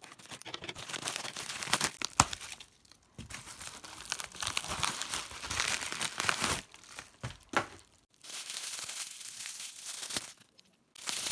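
A package being torn and crinkled open by hand: irregular bursts of rustling and tearing with a few sharp crackles, broken by short pauses.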